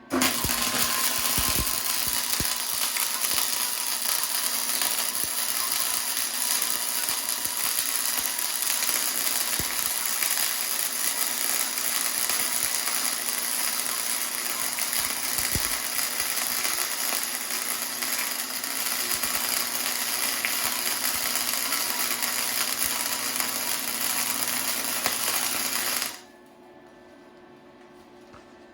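Chicago Electric Flux 125 flux-core wire welder running a bead: the arc gives a steady, dense crackle with a faint low hum under it. It starts abruptly and cuts off sharply near the end when the trigger is released.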